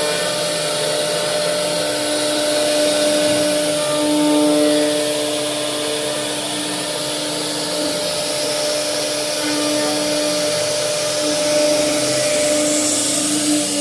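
A CNC router running steadily: a constant whine with a lower tone that fades in and out and shifts a little, over a loud rushing hiss.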